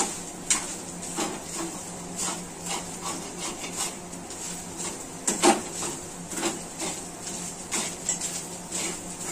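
Steel spoon scraping and knocking against a frying pan as it stirs onion and grated coconut roasting in it, about two strokes a second, with one louder knock about five and a half seconds in.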